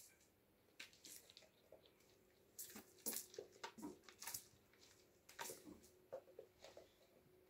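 Faint, scattered scuffs and taps of kittens playing: paws on the wooden floor and at a sisal-rope scratching post.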